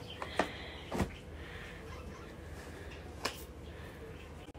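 Faint handling noise from shopping items and clothes being moved about on a bed: three soft clicks or taps over a low steady hum.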